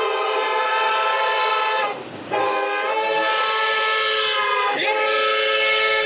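AI-generated train horn sound effect: a sustained, chord-like horn blast that breaks off briefly about two seconds in, then sounds again with a short wobble in pitch near the end.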